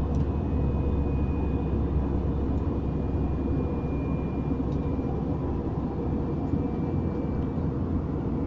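Airliner cabin noise during the climb after takeoff: a steady low drone of the engines and airflow, with a faint high whine above it.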